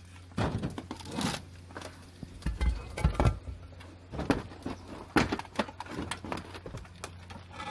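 Irregular scuffing and knocking of someone clambering over a tin-sheet roof, a handful of separate bumps and scrapes over a steady low hum.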